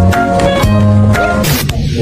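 Music with held bass notes and drum hits.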